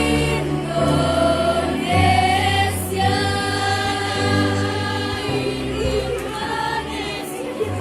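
Junior high school choir singing, holding long notes over a low bass line.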